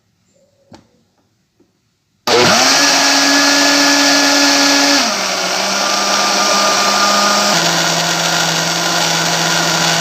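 Kitchen blender switched on about two seconds in, its motor running loud and steady as it blends a thick corn cake batter. The motor's pitch steps down twice, a few seconds apart. A few faint clicks come before it starts.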